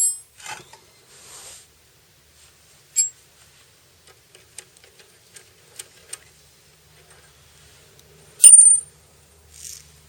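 Metal tools and parts clinking against metal with a short bright ring, once about three seconds in and loudly near the end, amid light ticks, taps and rustles from hand work.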